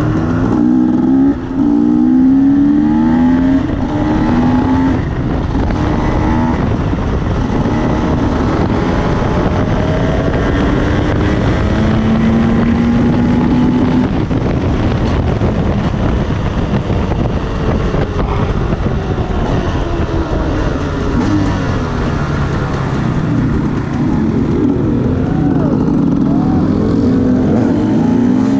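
Enduro dirt-bike engines revving and accelerating, several at once, their pitch rising and falling as the riders work the throttle.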